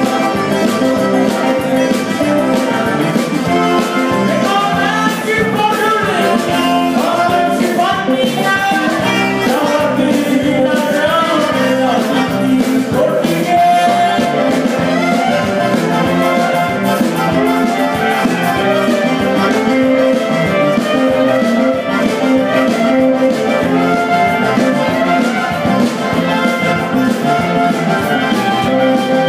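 Live band playing upbeat dance music with a steady beat.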